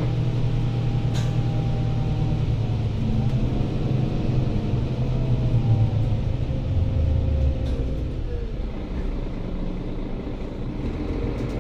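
Mercedes-Benz Citaro C2 city bus heard from inside the passenger cabin while under way: a steady low engine and drivetrain drone with road rumble. A whine in it glides in pitch through the middle as the bus changes speed, and there is a short click about a second in.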